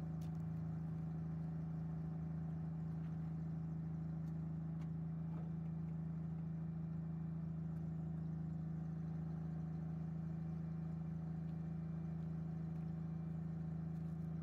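1954 Pontiac's engine idling steadily, with a few faint clicks over the top.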